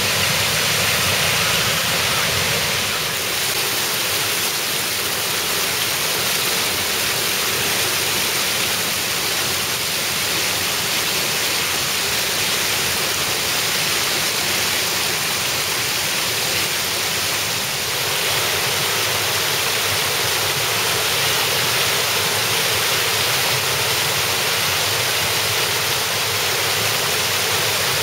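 Shallow water rushing and splashing down a concrete spillway, a steady loud hiss of whitewater.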